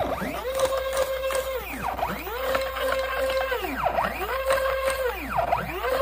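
Autodialer motor turning a safe's combination dial. Its whine rises, holds steady for about a second, then falls, four times in a row about every two seconds, as the machine dials one trial combination after another.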